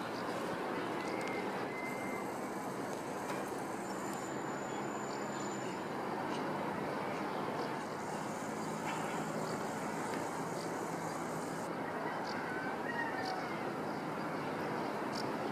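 Steady outdoor city ambience: a continuous hum of distant road traffic, even in level, with a few faint short chirps.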